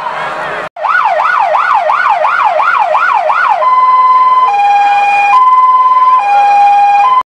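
Emergency-vehicle siren: a fast rising and falling wail, about two and a half cycles a second, switches about three and a half seconds in to a two-tone high-low pattern, each tone held a little under a second, then cuts off abruptly near the end.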